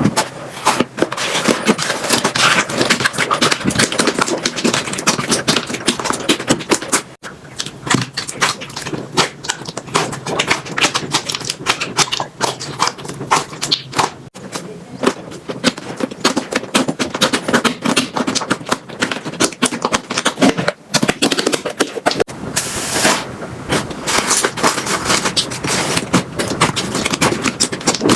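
Slime being squeezed and poked by hand, giving dense, rapid crackling and clicking pops. The sound breaks off and starts again abruptly several times.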